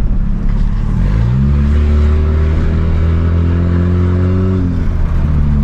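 Honda Civic's naturally aspirated 2.0 four-cylinder engine accelerating with its exhaust cutout open, giving a loud, open exhaust note. The engine pitch rises about a second in, holds steady for about three seconds, then drops a little near the end.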